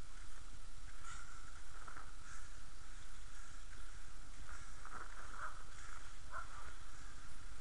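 Inline skate wheels rolling and hissing on wet asphalt, with a swish that comes back every second or so with the skating strokes, under a steady low wind rumble on the action camera's microphone.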